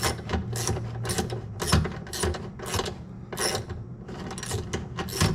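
Socket ratchet clicking in repeated short strokes, about two a second, while loosening a bolt.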